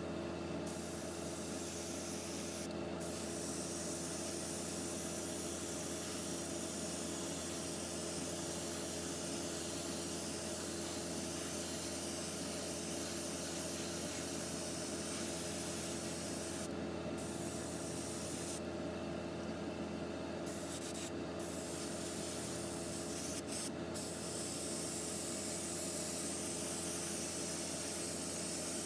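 A steady hiss with a constant low hum underneath, even in level throughout, with no separate strokes or knocks.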